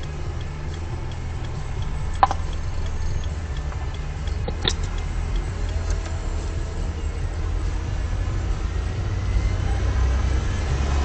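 Steady low rumble of a car's engine and tyres heard from inside the cabin, with a faint regular ticking for the first couple of seconds and two sharp clicks about two and four and a half seconds in.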